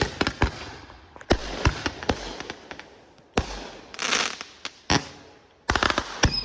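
Consumer fireworks going off: a string of sharp bangs at uneven intervals, a hissing crackle about four seconds in, and a quick volley of reports near the end.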